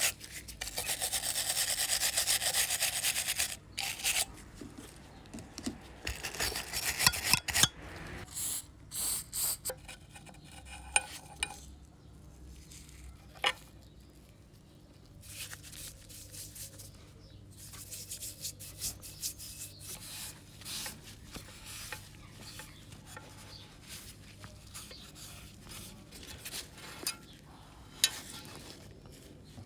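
Hand work on a part: a few seconds of steady rasping and rubbing, then scattered clicks, light knocks and softer rubbing.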